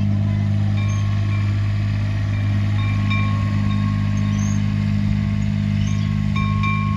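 A steady low machine hum, like a running motor or engine, with short high ringing tones sounding on and off over it.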